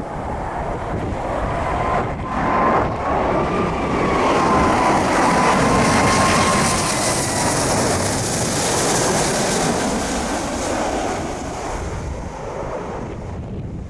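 Boeing 777-200ER twin-engine jet airliner passing on its landing approach: a wavering engine whine over a broad jet noise that swells, peaks mid-way and then fades. Wind buffets the microphone.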